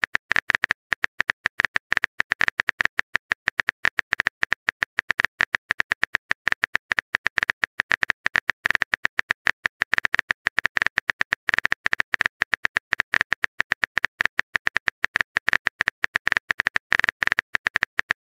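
Rapid, uneven run of sharp keyboard-typing clicks, a chat-app typing sound effect, several clicks a second without a break.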